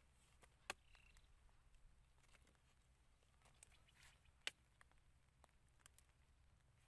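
Near silence broken by a few short, sharp knocks, the loudest two about a second in and about four and a half seconds in. These are a digging tool's blade striking and prying at hard, cracked dry mud.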